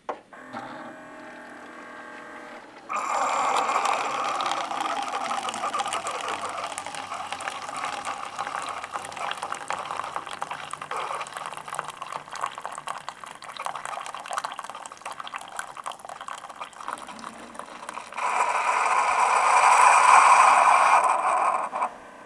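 Keurig single-cup coffee brewer brewing into a paper cup. A quiet hum for about three seconds, then coffee streams and gurgles into the cup, grows louder for a few seconds near the end, and stops.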